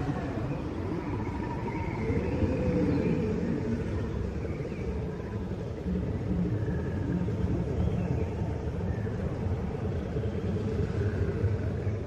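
A steady low rumble with a few faint sliding tones higher up.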